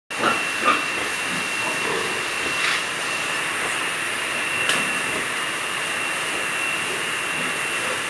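Steady hissing noise with a thin, steady high whine. A few short sharp sounds break through in the first five seconds.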